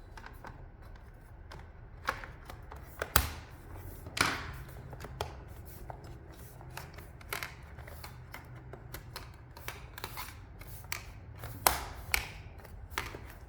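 Scattered sharp plastic clicks and taps from the Dell Precision 7730 laptop's drive cover and its lock being handled and pushed back into place, the loudest about three seconds in and again near the end.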